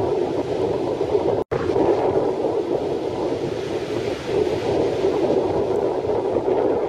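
Strong wind rushing over the microphone, mixed with surf breaking on the shore; the sound cuts out for a split second about a second and a half in.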